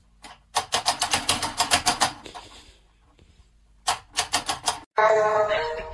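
Rapid run of sharp clicks or taps, about eight to ten a second, then a second shorter run. Near the end a louder pitched, held call or voice begins.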